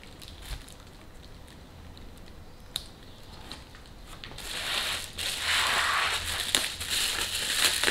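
Plastic bubble wrap around a box crinkling and rustling as hands work it open, much louder from about halfway through. A single sharp click comes about three seconds in.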